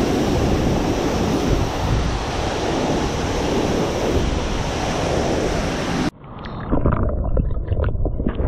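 Steady rushing roar of a large waterfall close by. About six seconds in it cuts off abruptly, giving way to a quieter, duller background broken by a run of sharp short knocks and splashes.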